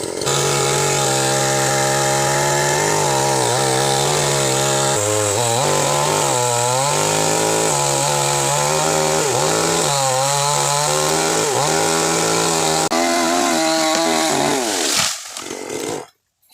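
Two-stroke chainsaw running at high revs and cutting into teak wood. Its pitch dips again and again as the chain bites and bogs in the cut, then recovers, and the sound cuts off suddenly near the end.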